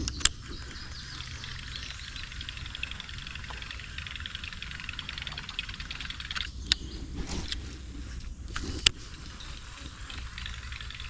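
Steady outdoor background of a low rumble and a high, finely textured buzzing hiss. Three sharp clicks or knocks stand out, just after the start, near the middle and about two seconds later.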